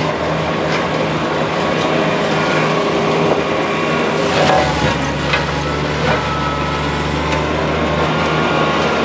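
TYM T25 compact tractor's three-cylinder diesel running steadily while it drives a Baumalight MP348 PTO forestry mulcher that grinds through brush and leaf litter. Sharp knocks of wood and debris being struck come through several times, mostly in the second half.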